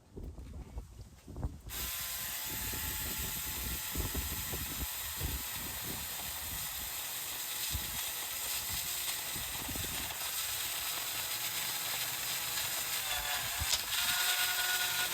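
A few low knocks, then about two seconds in a battery-powered mini chainsaw starts and runs steadily with a motor whine, cutting into a mulberry branch.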